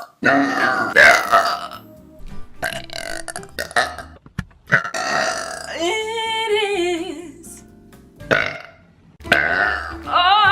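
A woman belching several times in a row, short burps followed by two long drawn-out belches with a wavering pitch, one in the middle and one near the end.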